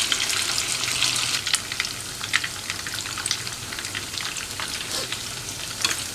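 Cornflour-battered bread rolls deep-frying in hot oil over a high flame: a dense crackling sizzle with frequent sharp pops, a little louder in the first couple of seconds.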